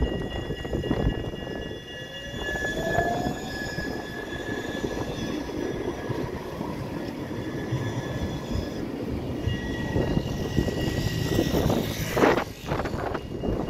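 Tram running along its track: steady rumble and rail noise with two steady whining tones, a short rising whine about three seconds in, and a louder short burst near the end.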